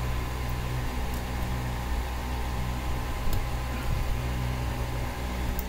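Steady low machine hum, with a few faint, sharp clicks of metal tweezers working on a vape pod's battery and circuit board.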